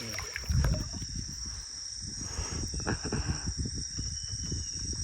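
A steady, high-pitched drone of insects in the forest, over irregular low knocks and rustles, with one stronger thump about half a second in.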